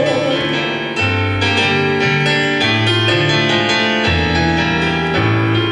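Grand piano playing an instrumental interlude between verses of a song, chords over bass notes that change about once a second.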